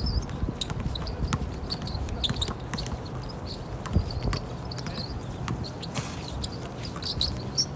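A basketball bouncing on an outdoor court, with irregular thuds, the sharpest about four seconds in, and many short high squeaks.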